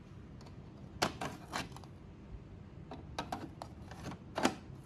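Plastic dust-collection tray of a banknote sorter being handled and slid into the base of the machine: a series of light plastic clicks and knocks, the loudest about a second in and near the end.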